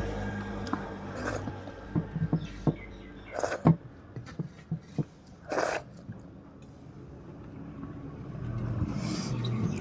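Scattered small clicks, scrapes and a few short hissy bursts, typical of eating rice and fish by hand from a plate, with a low rumble swelling near the end.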